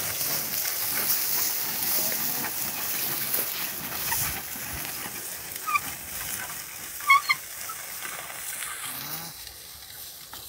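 Steady rustling hiss of outdoor field noise that grows fainter toward the end, with two brief high chirps about six and seven seconds in.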